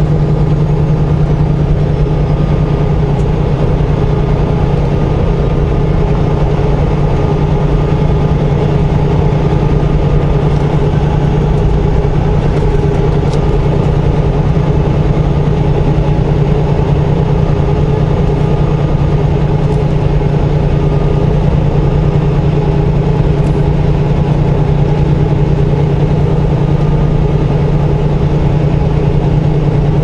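Semi-truck diesel engine and road noise heard from inside the cab, a steady low drone while cruising at highway speed.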